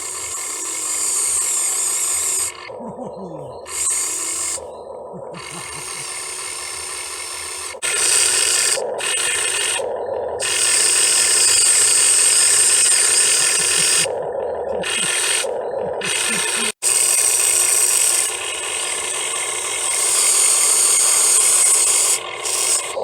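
Electric motors and metal gearboxes of an RC excavator whirring in runs of a few seconds that start and stop repeatedly.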